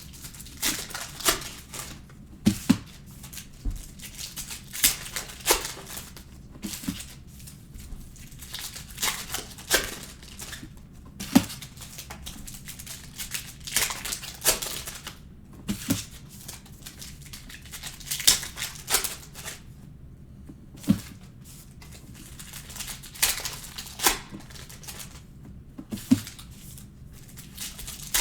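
Trading card packs and cards being handled: irregular crinkling and tearing of pack wrappers with sharp clicks of cards, several a second at times, then pausing.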